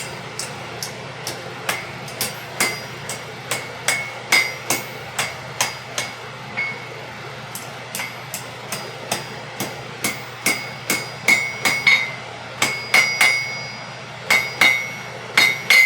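Blacksmith's hammer striking hot iron on an anvil in a steady run of blows, about two a second, each with a short bright ring. The end of a nail bar is being bent over on itself to form the nail's head.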